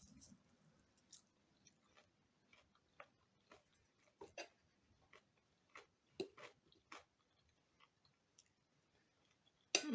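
Faint sounds of a person eating: chewing and scattered soft clicks, roughly one every half second to second.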